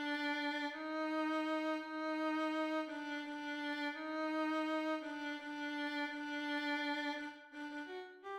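A single violin line played back from score notation software, one note at a time in long held notes that change pitch every second or two, with a brief break and shorter, higher notes near the end: a practice track of a second violin part.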